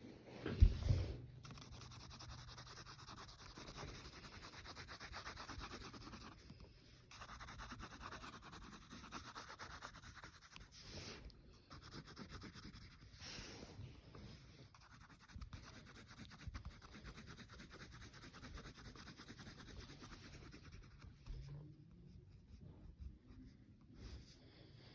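A coloring tool rubbing back and forth on paper in continuous scratchy strokes, with a few short pauses. A low bump sounds about a second in.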